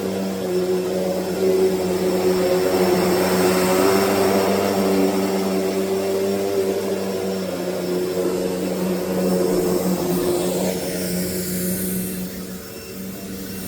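Hoover Deluxe Elite Rewind upright vacuum cleaner running, a steady motor hum and whine. It gets a little quieter and changes tone after about twelve seconds.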